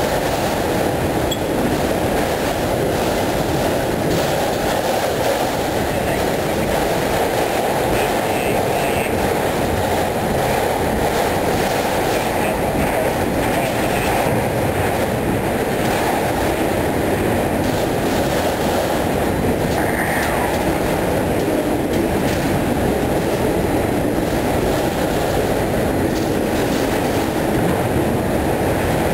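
Freight train of enclosed autorack cars rolling steadily past: the continuous noise of steel wheels running on the rails.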